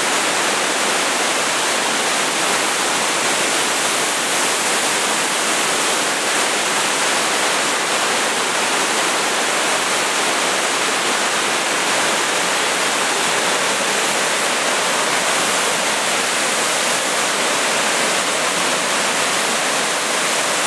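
Floodwater pouring through a dam's open spillway gates in a high flood release of about 340,000 cubic feet per second, churning into whitewater below: a loud, steady rush.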